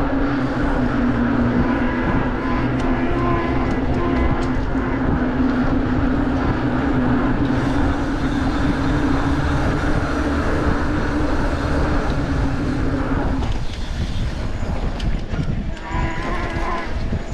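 A motor running at a steady pitch over a rumbling noise, which drops away about thirteen seconds in.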